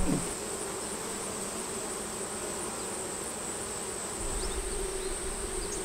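Honeybees buzzing in a steady hum around an open hive full of bees, with a steady high-pitched whine above it.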